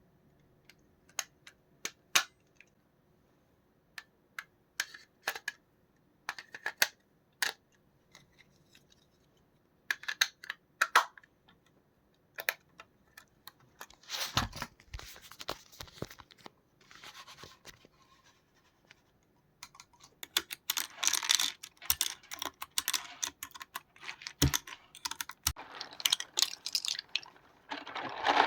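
Computer keyboard being handled and cleaned: scattered sharp plastic clicks and taps, then stretches of dense scrubbing about halfway through and over most of the last third.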